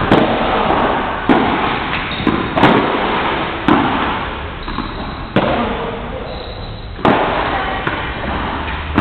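Padel rally: the ball is struck by the rackets and rebounds off the court, giving sharp pops about every second and a half, each trailing off in the echo of a large hall.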